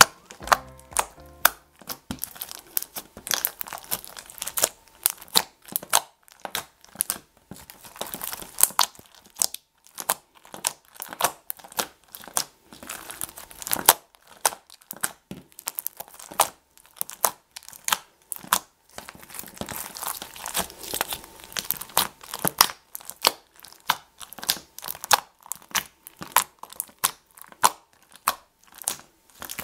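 Clear glue slime packed with foam balls and heart confetti being kneaded, squeezed and pulled apart by hand, giving a dense, irregular run of sticky crackles and pops. The slime is freshly made and still sticky.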